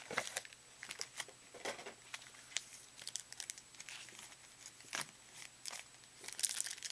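Trading-card pack wrappers being torn and crinkled open by hand: irregular crackling and tearing with scattered sharp snaps, the sharpest about five seconds in, and a burst of crinkling near the end.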